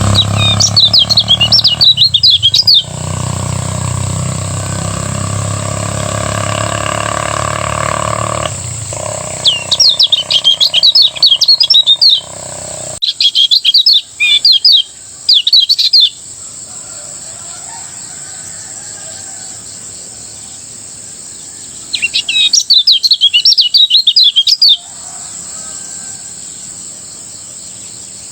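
Kecial kuning, a Lombok white-eye, singing its fast chattering song in several short high bursts of rapid notes with pauses between. A steady high whine runs underneath, and a low rumble with some lower steady tones fills the first half, dropping away about halfway through.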